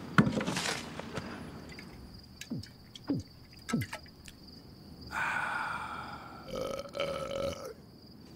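A man belching: a few short belches that drop in pitch, then a longer drawn-out belch in two parts starting about five seconds in. Crickets chirr steadily underneath.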